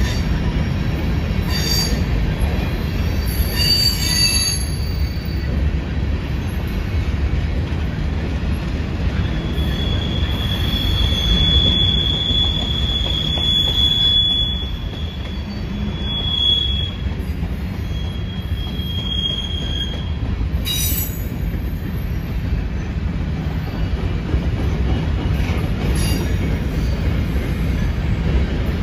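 Freight train of covered hopper cars rolling slowly past, a steady low rumble of wheels on rail with high-pitched wheel squeal: a long squeal starting about ten seconds in and lasting some five seconds, then two shorter ones, plus a few sharp clicks.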